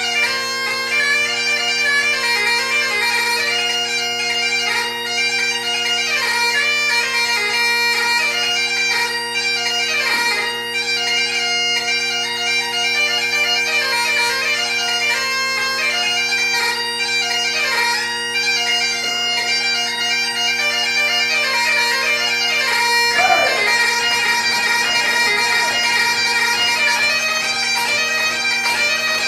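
Solo bagpipes: a quick chanter melody over steady drones. About 23 seconds in, the deepest drone note stops while the chanter and the higher drone carry on.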